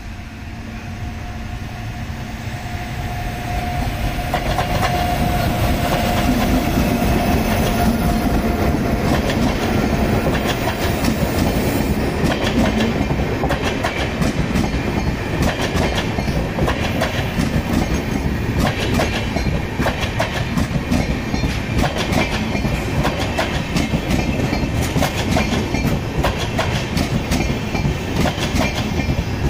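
Tejas Express passenger train approaching and passing at speed. The train noise grows louder over the first few seconds, then the coaches' wheels clatter rapidly over the rail joints as they rush by.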